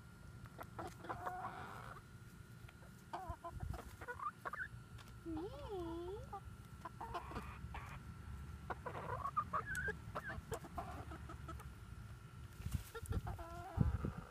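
Backyard hens clucking close by in short, scattered calls, with one wavering, up-and-down call about five seconds in.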